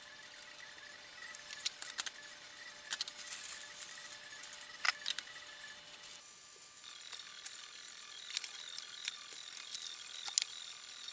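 Kitchen clatter at a stovetop: a frying pan, its lid, a metal spatula and a plate clinking and tapping in scattered sharp clicks, a few of them louder.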